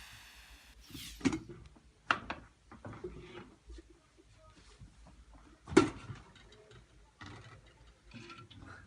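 Scattered clicks and knocks of objects being handled, with the loudest knock about six seconds in.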